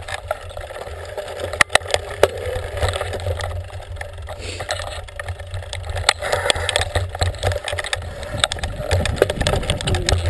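Mountain bike being ridden over a rough grass and rock singletrack, heard through a camera mounted on the bike: a steady low rumble with frequent knocks and rattles as the bike jolts over the ground, and a few sharper knocks about a second and a half to two seconds in.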